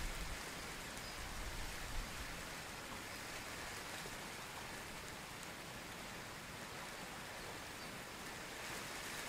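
Heavy rain falling on open pond water: a steady, even hiss of countless drops hitting the surface. A brief low thump about two seconds in.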